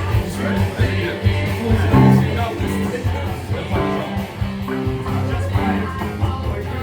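Rock band playing live, loud: guitar over a steady bass line and regular drum hits.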